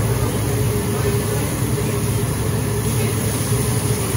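Steady drone and hiss at a teppanyaki grill: steak cubes sizzling on the flat-top griddle over the constant hum of the grill's exhaust fan.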